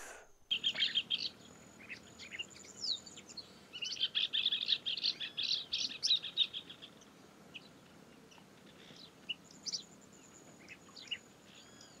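Blue-winged parrotlet (tuim) giving short, high chirps, with a quick run of rapidly repeated chirps from about four to seven seconds in, then scattered single chirps.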